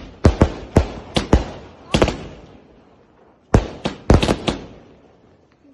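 Firecrackers going off in an irregular run of sharp bangs, each with a short echo, with a pause of about a second and a half a little past the middle before more bangs.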